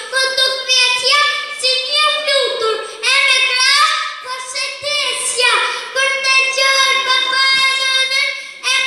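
A young boy's voice through a microphone and loudspeakers, reciting a poem in a high, sing-song chanted delivery, in phrases with short breaks.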